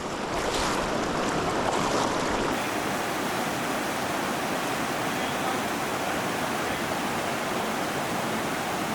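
Fast-moving mountain river rushing steadily.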